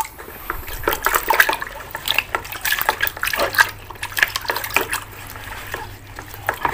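Water splashing and sloshing in a plastic bucket as a hand swishes and scrubs a plastic toy figure through it, washing off mud, in short irregular splashes.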